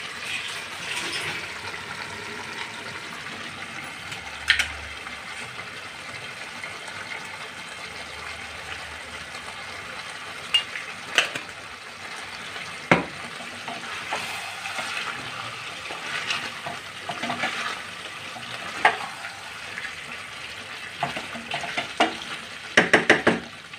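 Chicken pieces sizzling as they fry in masala in a nonstick kadai, a steady hiss throughout. A few sharp taps of the spatula on the pan come now and then, and a quick run of knocks shortly before the end as the pieces are stirred.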